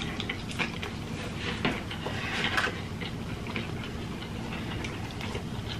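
Close-miked chewing of cheeseburgers: irregular small mouth clicks and smacks.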